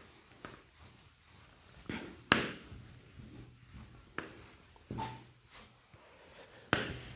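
Whiteboard duster wiping across a whiteboard: irregular rubbing strokes with a few sharper knocks, the loudest about two seconds in and near the end, and a brief squeak about five seconds in.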